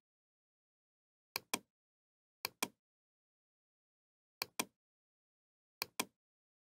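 Computer mouse button clicking: four pairs of quick clicks spaced one to two seconds apart, with silence between.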